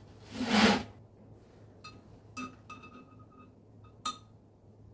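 A brief loud scraping rub near the start, then light metallic clinks that ring briefly, ending with a sharper clink about four seconds in: a measuring gauge being set inside the bore of the radial drill's spindle bearing.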